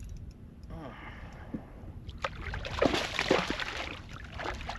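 Water splashing beside a kayak, in a cluster of sharp splashes a little past halfway through and a shorter one near the end.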